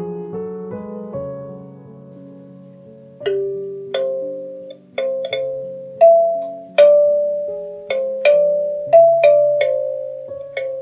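Kalimba played with the thumbs: from about three seconds in, a slow melody of single plucked metal-tine notes, each with a sharp attack that rings and fades. Softer, lower held notes sound beneath it, and before the melody starts.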